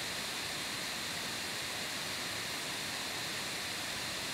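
Steady background hiss of the recording, even throughout, with a faint high-pitched whine running through it.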